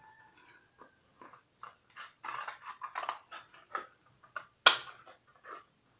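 Metal scissors cutting through a thin cardboard box: a run of crunching snips starting about a second and a half in, with one loud sharp snap near the end.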